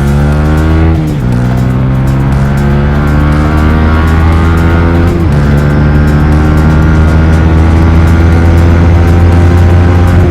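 Yamaha R15 V3's 155 cc single-cylinder engine through an R9 aftermarket exhaust, accelerating hard through the gears: the pitch climbs steadily, drops at an upshift about a second in and again about five seconds in, then climbs again each time.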